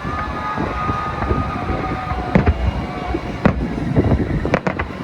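Fireworks going off: separate sharp bangs through the middle, then a quick cluster of pops near the end, over a steady low rumble and long whistling tones.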